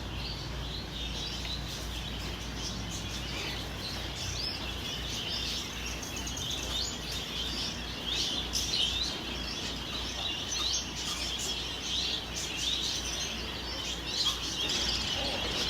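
Many small caged birds chirping at once, a dense, unbroken chorus of short high chirps and squeaks.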